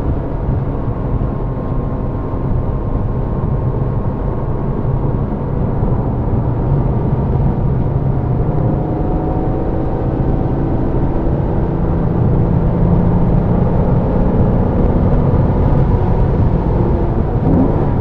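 Car engine running hard at track speed, heard from inside the car over heavy road and tyre noise. Its pitch slowly rises and falls with speed, and it gets a little louder after about 12 seconds.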